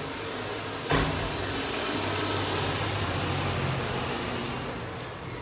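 A motor vehicle passing outside, its engine hum and road noise swelling and then fading over a few seconds, with a sharp knock about a second in.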